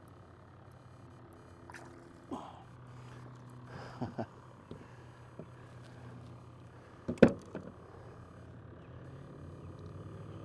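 Handling noises as a largemouth bass is grabbed by the lip from the water beside a kayak and unhooked: scattered small knocks and splashes, with a sharp knock about seven seconds in. A faint steady hum runs underneath.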